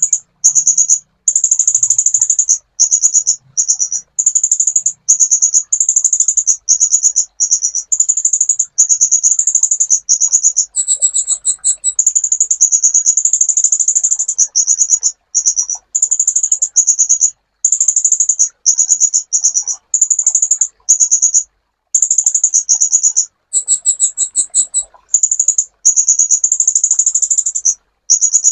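Kolibri ninja sunbird song: rapid high-pitched trills in phrases of about a second, separated by short breaks. Twice it changes to a higher, two-toned phrase.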